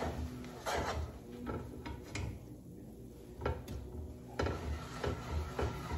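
A metal fork scraping and tapping against the bottom of a skillet as a stick of butter speared on it is rubbed around to melt it in the pan drippings. The strokes come at an irregular pace, with a few soft knocks.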